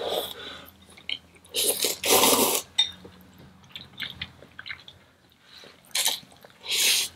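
Eating sounds: spicy instant noodles being slurped and chewed. A few loud slurps come through, the longest about two seconds in and two shorter ones near the end, with small wet chewing clicks between them.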